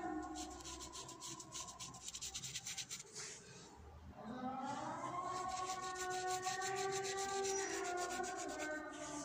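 Watercolour brush scrubbing back and forth on paper in quick, repeated strokes, pausing briefly in the middle. Background music with long held notes comes in about halfway through.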